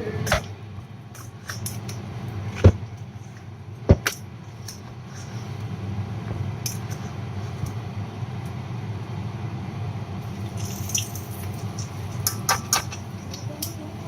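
Kitchen cooking sounds: a few sharp knocks and clinks of cookware, the two loudest about a second apart early on, over a steady low hum.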